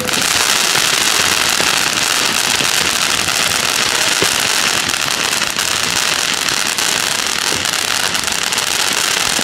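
Ground fountain firework spraying sparks: a loud, steady hiss with dense, fast crackling throughout.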